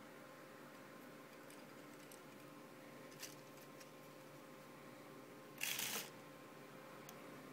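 Handling noise from a plastic Lego Technic chassis: a faint click about three seconds in and a short scraping rattle just before six seconds, over a faint steady hum.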